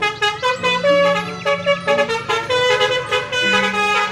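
Telolet bus horn playing its tune: a run of horn notes stepping up and down in pitch.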